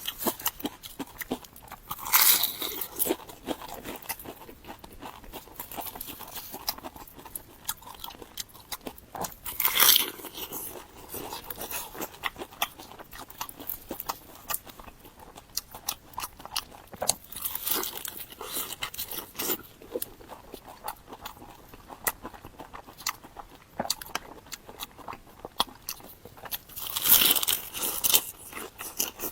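Close-miked crunching bites into a large pepper. A loud crunch comes every several seconds, about four in all, with steady chewing between.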